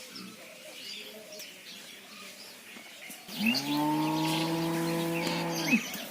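A cow mooing once: a single long, steady moo starting about three seconds in and lasting about two and a half seconds, with birds chirping faintly around it.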